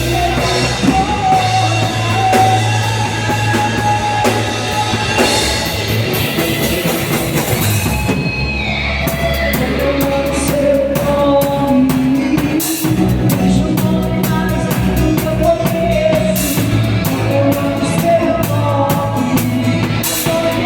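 Band music with a sung melody over drum kit, bass and guitar, in a rock-style gospel praise song.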